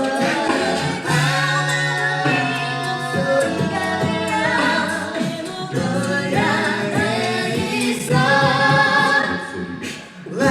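An a cappella vocal group singing in close harmony, several voices together with no instruments, with a short lull near the end.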